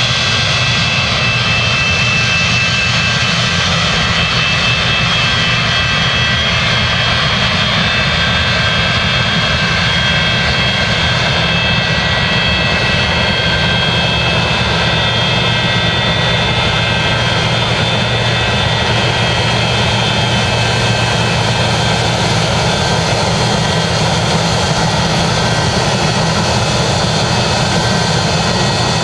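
Boeing 737-200's Pratt & Whitney JT8D jet engines running at a steady setting: a constant rush of noise with several high, steady whining tones, unchanging in loudness.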